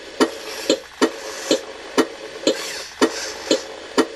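Background music with a steady beat, about two beats a second, over a held note.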